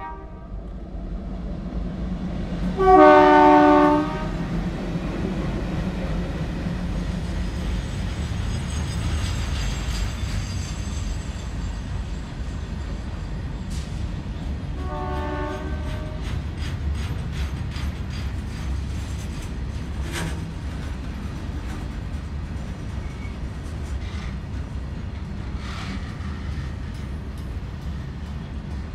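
ALCo WDM-3D diesel locomotive sounding its twin-tone horn: one loud blast about three seconds in and a shorter, fainter one about halfway through, over the steady low rumble of the train. In the second half, wheels click rhythmically over the rail joints.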